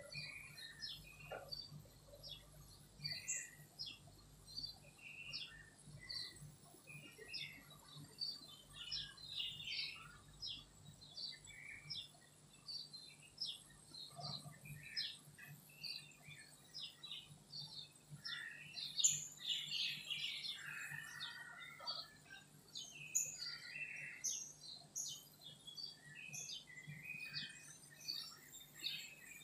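Early-morning dawn chorus of several songbirds: a dense run of short, overlapping chirps and whistled phrases, with a faint steady low hum beneath.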